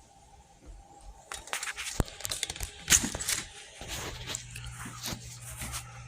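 Cardboard and plastic packaging being handled: rustling and crinkling with a string of sharp knocks and clicks, the loudest two about a second apart. A low steady hum comes in about four seconds in.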